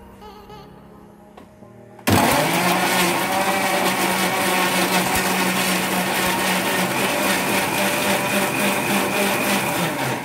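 Preethi Zodiac mixer grinder with a steel jar grinding tomatoes: the motor starts suddenly about two seconds in, runs loud and steady with a constant hum, and is switched off at the very end.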